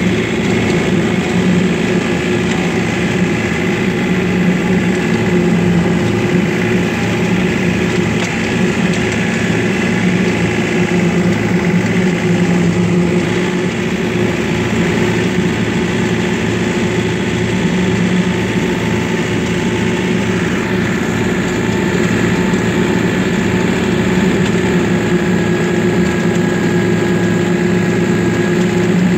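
John Deere 3025E compact tractor's three-cylinder diesel engine running steadily while cutting hay, heard from the driver's seat, with a thin high whine over the engine drone.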